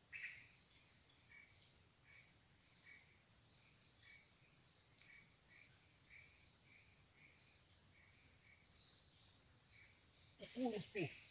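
Steady forest insect chorus: a continuous high shrill at two pitches, with short chirps repeating about twice a second. A man's voice comes in near the end.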